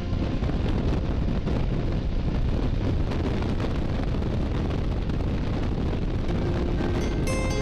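Wind rushing over a helmet-mounted camera's microphone, mixed with the low rumble of a motorcycle at road speed: a steady noise without a tune. Background music comes back in near the end.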